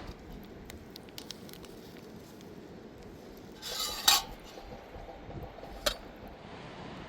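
Small clicks and clinks of hard objects being handled. About four seconds in there is a short scraping rustle ending in a loud knock, and a second sharp knock follows near six seconds.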